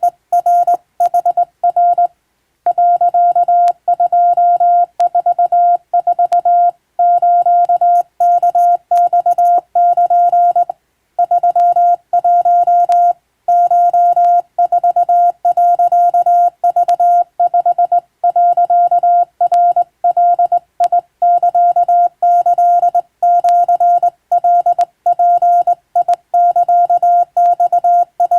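Hand-keyed Morse code in Japanese wabun code: a single steady beep switched on and off in dots and dashes, sent by hand on a telegraph key, with short pauses between characters and words.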